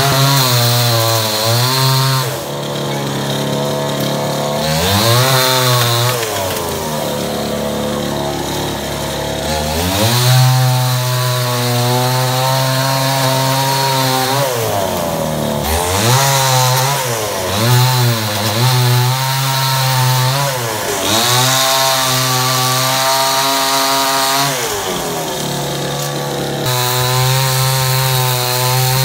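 Chainsaw engine running loud and revving up and down over and over, its pitch dipping and climbing again every second or two as it cuts into a felled tree trunk.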